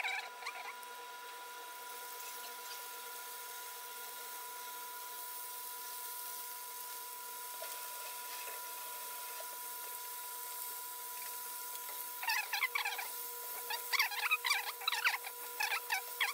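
Batter-coated chicken wings deep-frying in hot oil: a steady sizzle, breaking into dense crackling and popping about three-quarters of the way through. A faint steady tone sits underneath.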